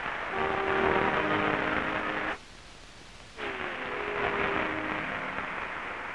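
Theatre audience applauding, with an orchestra playing held notes over the clapping. The sound drops out abruptly for about a second a little over two seconds in, then the applause and music come back.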